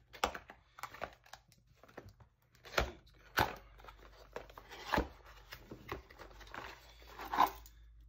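Cardboard-and-plastic retail packaging being torn open and handled by hand: irregular tearing, crinkling and rustling, with a few louder rips spread through.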